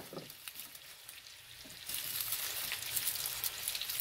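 T-bone steak frying in butter in a pan, a steady sizzle with crackles that grows clearly louder about two seconds in. A few faint clicks come before it.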